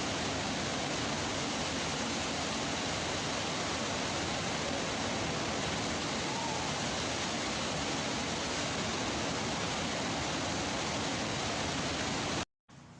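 A steady, even hiss of noise at a constant level, cutting off abruptly near the end.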